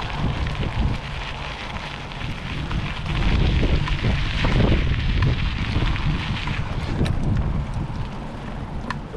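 Wind buffeting the microphone: a gusty, low rumbling noise that strengthens about three seconds in and eases off toward the end.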